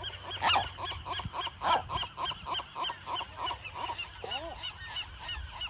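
A colony of western gulls calling: a dense chorus of short, arched calls, several a second and overlapping, with no pause. These are the agitated calls of nesting gulls at a person walking among their chicks.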